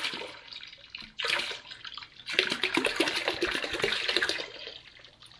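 Windshield washer fluid poured from a jug into a plastic tub that already holds several gallons, splashing into the liquid. A short splash comes about a second in, then a steady pour for about two seconds that tails off near the end.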